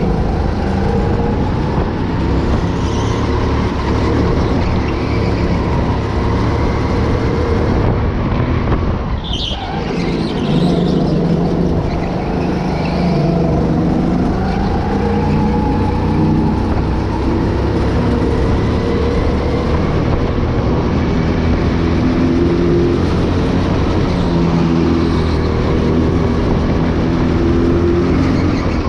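Go-kart engine heard from on board, running hard and rising and falling in pitch as the kart accelerates down the straights and slows for the corners, with a brief drop in the engine note about nine seconds in.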